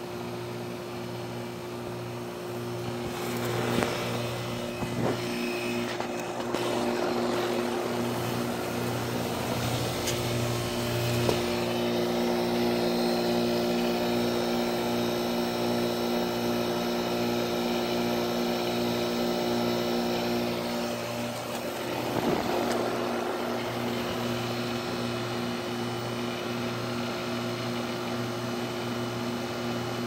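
Goodman central air-conditioner condenser running: a steady electrical hum from the compressor under the rushing of the outdoor fan. The rushing swells for a few seconds about four seconds in and again about twenty-two seconds in.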